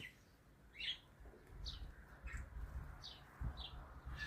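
Faint short chirps from pet parrots (cockatiels and budgies), about five scattered single calls, over a low steady rumble.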